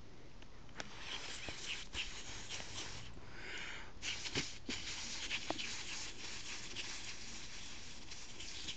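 A person blowing a series of soft, breathy puffs of air close to a ginger kitten's face, the kitten sniffing at her lips, the puffs heaviest from about four seconds in.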